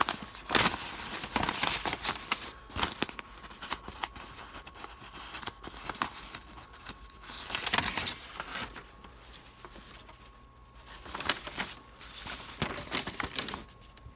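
Paper instruction sheets rustling and crinkling as they are handled, in irregular bursts that come and go.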